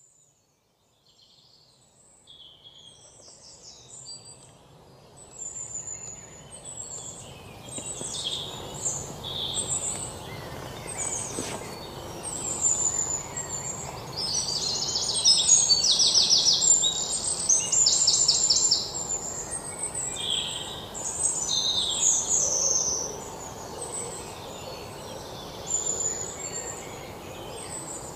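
Birdsong ambience: many small birds chirping and trilling, some in rapid repeated notes, over a steady outdoor hiss. It fades in from silence over the first several seconds.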